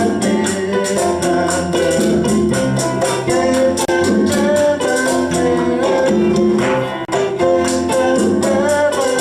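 Latin band playing a groove with all its parts together: a bass guitar tumbao, keyboard chords and steady hand percussion, laid over the clave.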